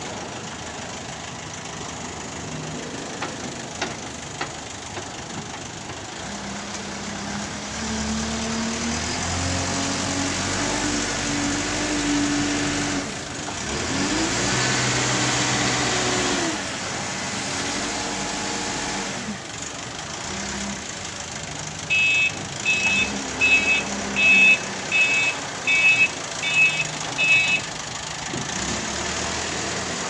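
JCB backhoe loader's diesel engine revving up and down as the front loader bucket is driven into a pile of soil. A little past two-thirds of the way through, the machine's reversing alarm beeps about eight times, evenly spaced and louder than the engine.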